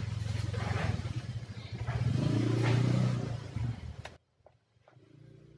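A motor vehicle engine running, swelling in level about two to three seconds in. Just after four seconds the sound cuts off abruptly, and a few faint clicks follow.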